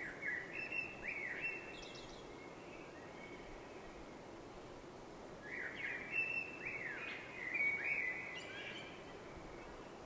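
A songbird singing two phrases of quick notes that rise and fall in pitch, the first right at the start and the second about halfway through, over a steady background hiss.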